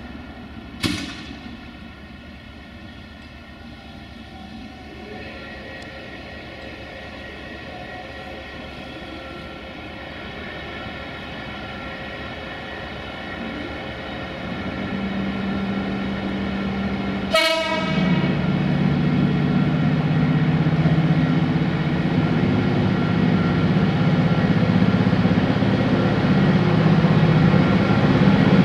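A Romanian 060-EA (LE 5100 kW) electric locomotive with passenger coaches moving slowly closer, its steady electrical whine giving way to a lower hum that grows louder. Two very short horn toots, one about a second in and one about 17 seconds in.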